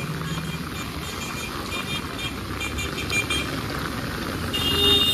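Steady rain hiss and traffic on a wet street, with a motor vehicle engine idling at first. Clusters of short high beeps come through the first few seconds, and a louder, longer high beep sounds near the end.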